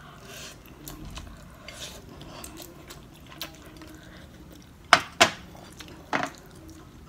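A fork scraping and clinking against a ceramic plate of noodles, with three sharp clinks near the end.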